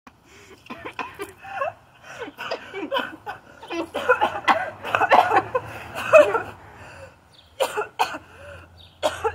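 Women laughing hard, broken up by coughs and spluttering breaths, in uneven bursts that are loudest in the middle.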